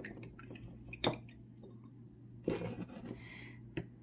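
Paintbrush being rinsed in a glass jar of water: the brush clinks against the glass about a second in and again near the end, with a brief swish in between.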